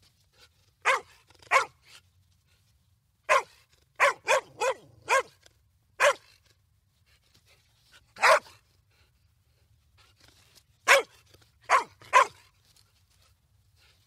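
A dog barking in short, sharp single barks, about a dozen in all, coming in irregular clusters of one to four with pauses of up to two seconds between them.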